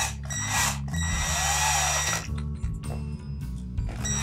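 Ridgid cordless drill-driver running in short bursts as it turns a screw in a soldering iron's handle, the longest burst lasting about a second, with a high motor whine. Background music plays underneath.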